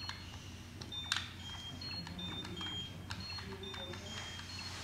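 Power Rangers Super Megaforce Morpher toy giving a string of short, high electronic beeps, with plastic clicks from its buttons, the sharpest about a second in.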